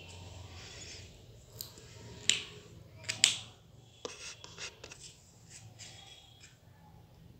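Small sharp clicks and taps of hands handling a little craft notebook and a marker pen, the two loudest clicks about two and three seconds in, followed by a few lighter ticks.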